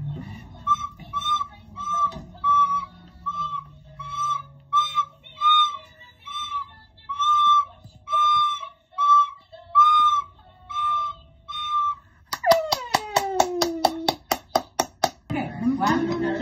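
Background music: a whistle-like tune of short, evenly spaced notes. About twelve seconds in it gives way to a quick run of clicks under a falling pitch glide.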